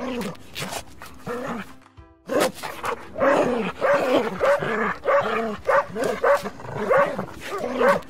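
A dog barking over and over in short, pitched barks. After a brief break about two seconds in, the barks come steadily, about two a second.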